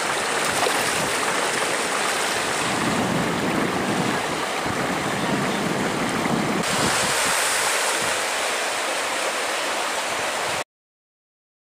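River water rushing over rocks, a steady noise whose tone shifts a couple of times, stopping abruptly near the end.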